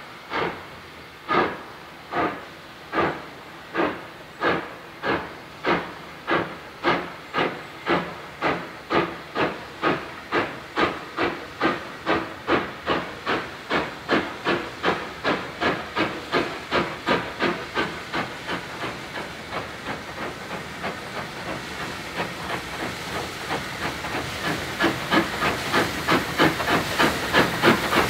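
Steam tank locomotive of the Caledonian Railway 439 Class (0-4-4T) working a passenger train, its exhaust chuffing in sharp, even beats. The beats quicken from about one a second to two or three a second as the engine gathers speed, and grow louder in the last several seconds as it draws near, over a steady hiss of steam.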